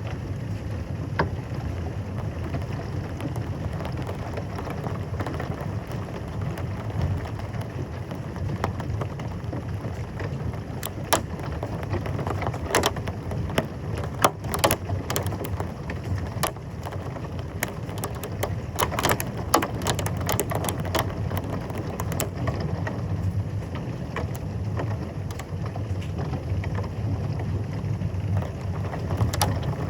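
Heavy rain pouring steadily during a thunderstorm, with many sharp ticks of impacts striking a surface, thickest in the middle stretch.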